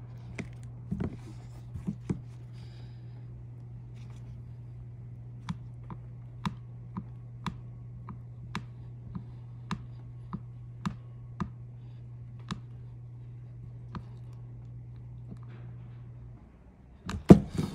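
Razor blade sawing through a rubber fairing part in short strokes, giving a run of small sharp clicks about twice a second over a steady low hum, with a few louder clicks and knocks near the end.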